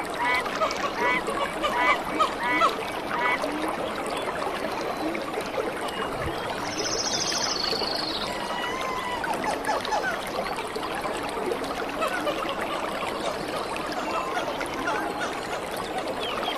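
Shallow stream water running and splashing, with a short chirping call repeated about twice a second for the first few seconds and a brief high, rapid trill about seven seconds in.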